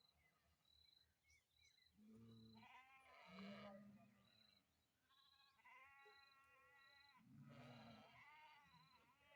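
Sheep bleating: several wavering calls a second or so long, some overlapping. A short high chirp repeats evenly about every two-thirds of a second behind them.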